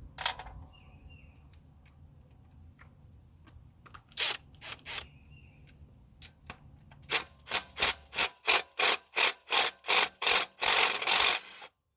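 Cordless power tool run in short trigger bursts, backing out the 13 mm bolts on a V6 intake manifold. A few bursts come near the middle, then a quick even run of about a dozen, ending in one longer run that cuts off.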